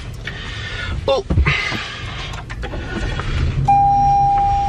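Low steady rumble inside a car with the engine running. About a second in there is a short vocal grunt, and near the end a steady electronic beep tone starts and holds.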